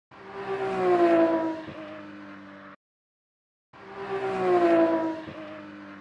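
Racing-car pass-by sound effect: an engine note swells and drops in pitch as it goes by, then settles and cuts off abruptly. The same clip plays twice, with a second of silence between.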